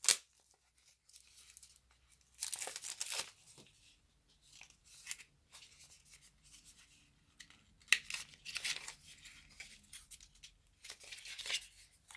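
Product packaging being torn open and crinkled by hand, in several short rustling bursts, with one sharp click about eight seconds in.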